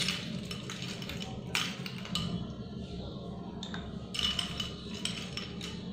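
Ice cubes dropped one by one into a glass of juice, a handful of separate clinks and knocks against the glass over a low steady hum.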